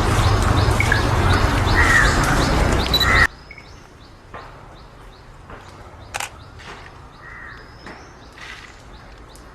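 A loud, dense din that cuts off suddenly about three seconds in, leaving a much quieter outdoor scene with crows cawing and small birds chirping, and a sharp click midway.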